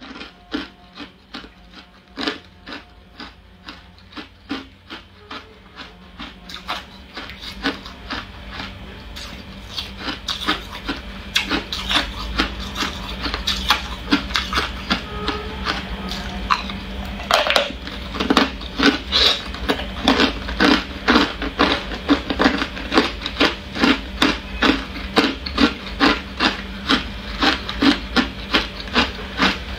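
Hard ice cubes crunched between the teeth, a rhythmic run of crisp crunches about two a second that grows louder and denser from about ten seconds in.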